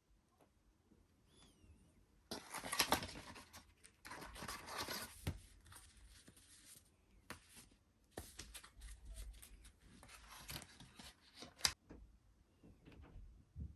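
Packaging being handled and opened: irregular rustling, crinkling and tearing, with sharp clicks in between.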